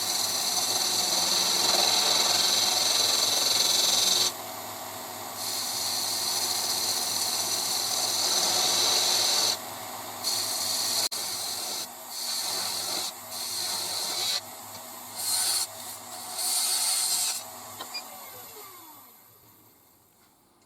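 Wood lathe running at about 1400 rpm while a skew chisel takes peeling cuts off a spalted wood blank: a loud scraping-hiss of cutting that starts and stops in stretches over the motor's steady hum. Near the end the lathe is switched off and its hum falls in pitch and fades as it spins down.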